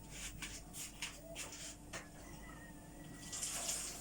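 Faint clicks and light knocks of kitchen items being handled, with a short hiss near the end.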